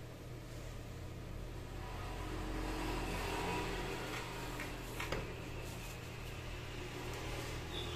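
Steady low machine hum on a repair bench, with one sharp click about five seconds in and faint rustling as a tissue is rubbed over the circuit board.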